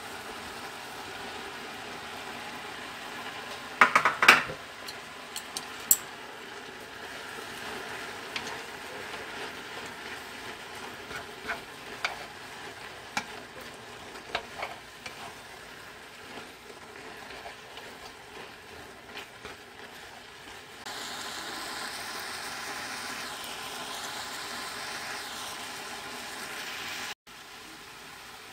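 Pork, aged kimchi and onions stir-frying in a red chili sauce in a frying pan, sizzling steadily while being stirred, with a cluster of sharp clacks about four seconds in as the pork goes in and scattered clicks of utensils against the pan after. The sizzle grows louder and brighter about three-quarters of the way through.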